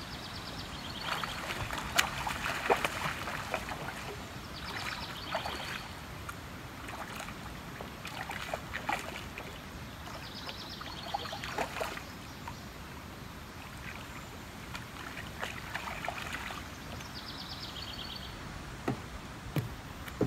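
Water sloshing and splashing around a kayak as a hooked catfish is fought and reeled in, with scattered clicks. A high trill repeats about every six seconds.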